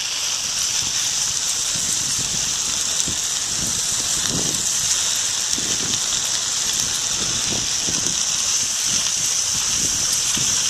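Steady hiss of bicycle tyres rolling over a wet, slushy road, like light rain.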